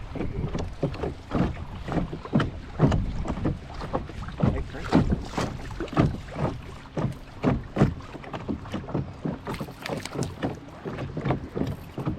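Wind buffeting the microphone in a low rumble, with small waves slapping and lapping in irregular strokes, several a second.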